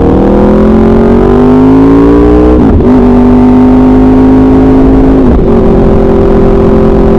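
Motorcycle with an SC Project aftermarket exhaust accelerating, its engine note rising for about two and a half seconds, then dropping sharply as it shifts up and holding a steady pitch while it cruises.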